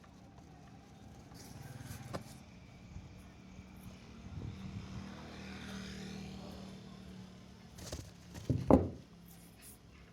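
Road traffic: a steady vehicle engine hum, with another vehicle passing and swelling louder in the middle. A sudden loud thump comes near the end.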